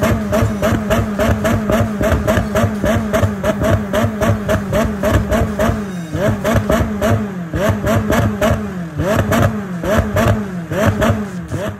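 McLaren 600LT's twin-turbo V8 revved hard while the car stands still, heard loud through its top-exit exhausts. The pitch swings up and down in a fast, even rhythm of about three rises a second, and the swings grow slower and wider in the last few seconds.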